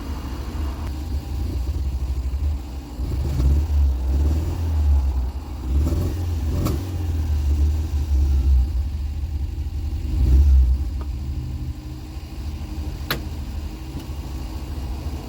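1990 Ford Fiesta Mk3 engine running with a deep exhaust rumble and an angrier tone through the refitted rear silencer. It is revved up a few times, with a couple of sharp clicks in between. The car has a running fault that the owner suspects is a spark plug.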